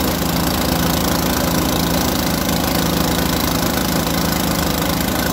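Engine-driven water-well drilling rig running steadily, its engine giving a fast, even pulse.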